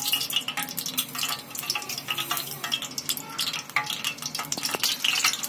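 Fenugreek seeds frying in hot oil in a stainless steel kadai: a steady sizzle made of many small crackling pops.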